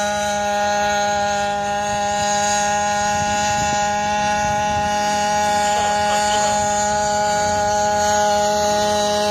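Hybrid internal-combustion quadcopter hovering and flying: a steady hum made of several fixed tones, with faint brief pitch wavers about six seconds in.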